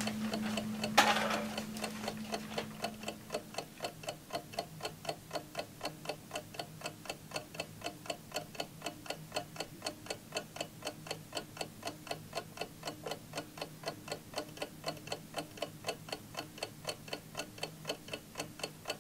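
Alarm clock ticking steadily, about four ticks a second. A single sharp click sounds about a second in, and a low hum fades out over the first few seconds.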